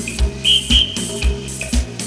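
Live band playing an upbeat dance groove with a steady kick-drum beat, no singing. A high whistle cuts in twice in quick succession about half a second in.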